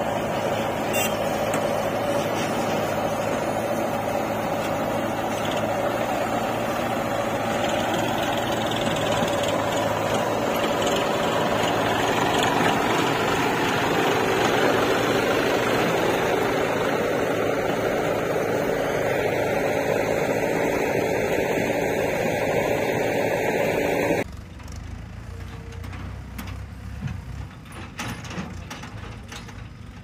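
A John Deere tractor's diesel engine running loud and steady. About 24 seconds in it cuts off suddenly to a quieter, more distant machine sound.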